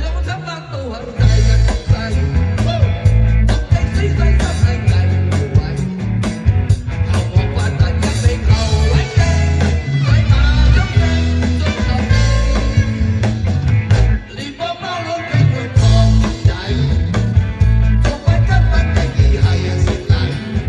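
Live rock band playing an upbeat instrumental passage, with steady drum beats, heavy bass and electric guitar.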